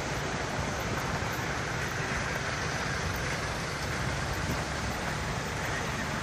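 Steady traffic noise: car engines running on a snow-covered hill road, an even rumble without distinct events.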